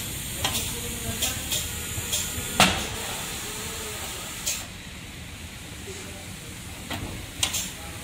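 Compressed air hissing steadily on a tyre changer as the bead-breaker blade is pressed against the tyre sidewall. Sharp metallic clicks come throughout, with one loud knock about two and a half seconds in. The hiss drops away a little past halfway.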